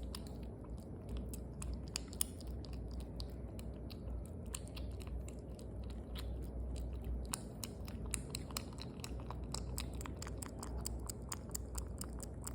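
A cat chewing its food, a fast, irregular run of short clicks that keeps on without a break.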